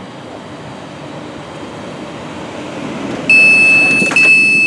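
Class 350 electric train's running noise slowly growing louder. About three seconds in, its door-release warning sounds: a loud, steady high-pitched beep, broken briefly, as the door open button is pressed.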